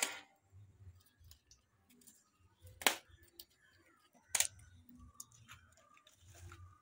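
Firewood at a wood-burning stove: three sharp clicks, one at the start, one about three seconds in and one a second and a half later, over a faint low rumble and a few small ticks.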